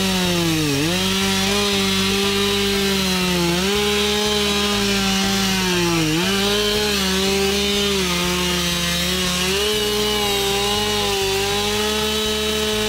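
Two-stroke chainsaw running at full throttle while cutting through a thick tree trunk, its engine note sagging as the chain bites into the wood, about a second in and again about six seconds in, then recovering.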